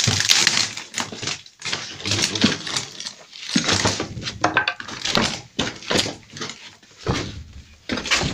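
Footsteps crunching and scuffing over debris, about two steps a second, with rustling.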